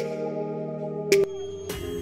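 Background music: held electronic chords with a sharp beat at the start and another about a second in, then softer.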